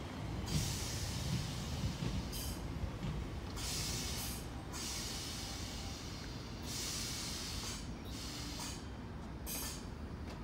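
Class 319 electric multiple unit running into the platform and slowing to a stop: a steady low rumble of wheels on the rails, broken by about six short bursts of hiss.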